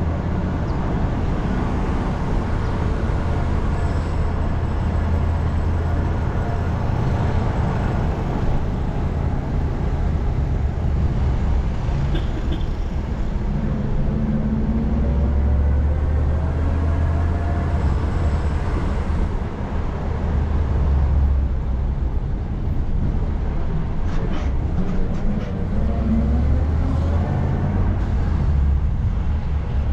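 Micro (city minibus) running on the road: a steady low engine drone with road rumble. The engine pitch rises and falls a couple of times as it changes speed.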